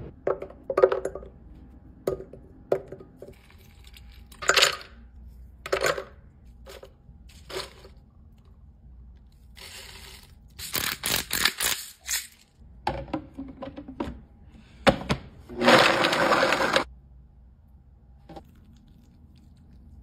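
Close-up kitchen prep sounds: separate sharp knocks and clicks of vegetables and utensils on a wooden board and against a blender jug. About halfway through comes a dense run of crackling clicks, and near the end a longer rushing burst of under two seconds.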